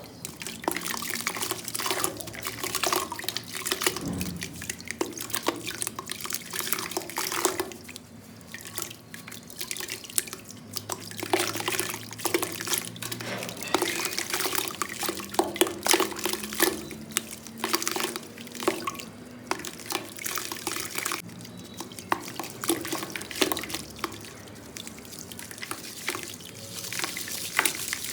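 Clumps of black sand crumbling and dropping into water in a bucket: a run of irregular crunches, drips and small splashes.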